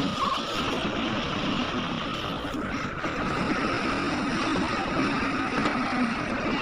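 Heavy diesel earthmoving machinery running steadily at a mine site, an engine under work with a constant hum.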